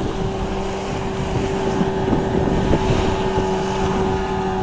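Outboard motor of a mini speedboat running steadily at full speed, with wind on the microphone.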